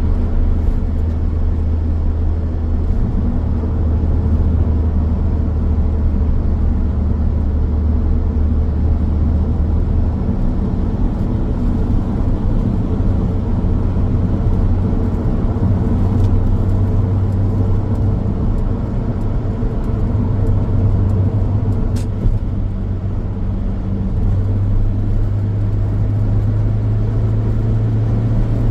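Car driving along a road: steady engine drone and tyre noise on the pavement. The engine note shifts about ten seconds in and rises slowly over the second half, and there is one sharp click about 22 seconds in.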